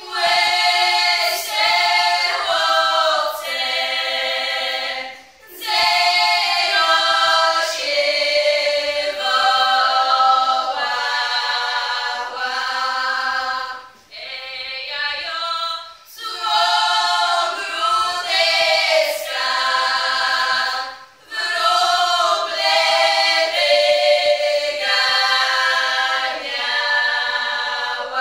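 A small group of women singing a Polish highland folk song unaccompanied, in high voices, in sung phrases a few seconds long with short breaks for breath between them.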